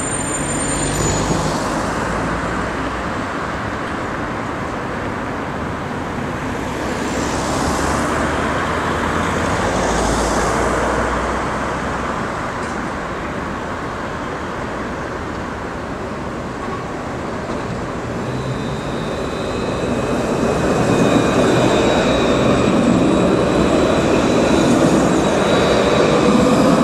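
Street traffic noise with a Paris T3 tram running along its track and passing close by, growing louder in the second half. From about two-thirds through its motors add steady high whines, and a whine rises in pitch near the end as it goes past.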